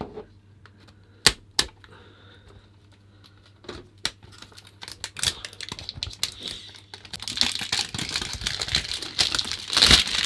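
Clear plastic shrink wrap being torn and peeled off a cardboard trading-card box: two sharp clicks about a second in, then dense crinkling and crackling from about five seconds on, loudest near the end.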